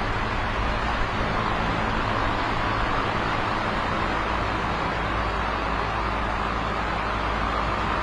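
Electric fan running steadily: an even whooshing of air with a low hum underneath.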